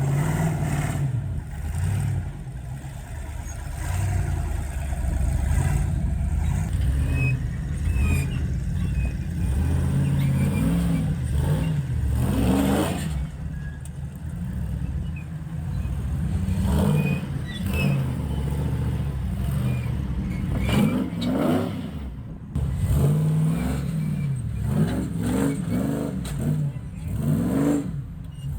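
Off-road rock-crawling vehicle engine revving again and again as it climbs a rock section, its pitch rising and falling in repeated bursts of throttle.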